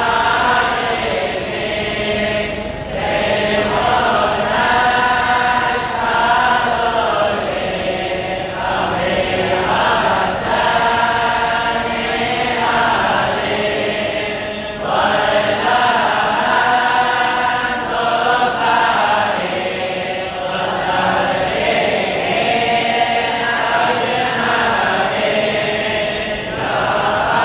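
A group of voices chanting together in unison: devotional chanting in sung phrases of a few seconds each, with short breaks for breath between.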